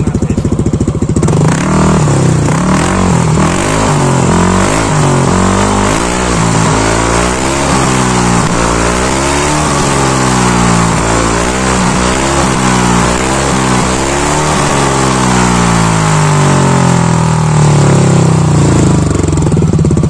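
Stock scooter engine with a JVT v3 aftermarket power pipe exhaust, revved over and over: after about a second of idling, its pitch rises and falls about once a second, then drops back toward idle near the end.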